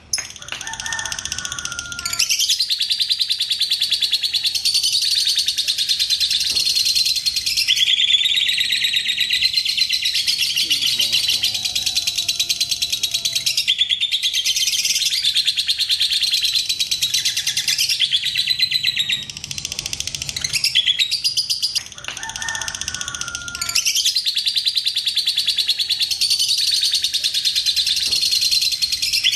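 Fischer's lovebird singing its long rapid chattering trill ('ngekek panjang'), high-pitched and running on for many seconds at a time. Two short breaks, one at the start and one about two-thirds of the way in, hold a few lower chirps before the chatter resumes.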